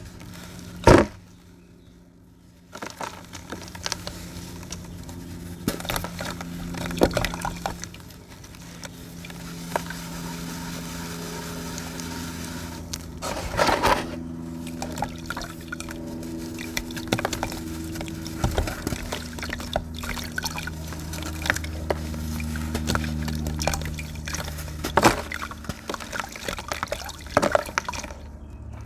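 Crunchy sand crumbling and falling into water: a dense gritty crackle with splashing and trickling. There is a sharp louder hit about a second in and a heavier burst of crumbling about halfway through.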